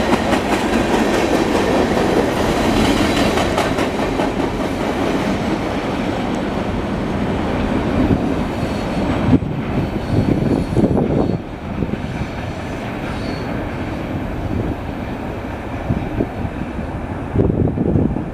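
Freight cars of a long CSX manifest train, autoracks among them, rolling past: wheels clicking over the rail joints with some wheel squeal. The rumble gets quieter and thinner about eleven seconds in.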